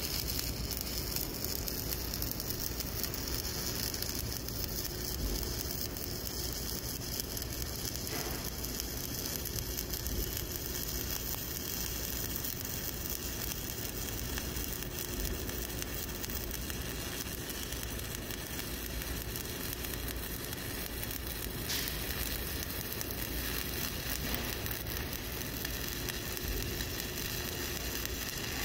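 Shielded metal arc (stick) welding arc from an E7018 electrode burning steadily through a fast cover pass on a horizontal groove weld. The pass is laid quickly to fill underfill along the weld's edge.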